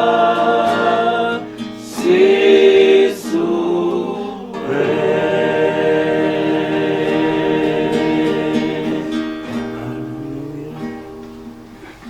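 A choir singing a hymn in long held chords, fading gradually near the end.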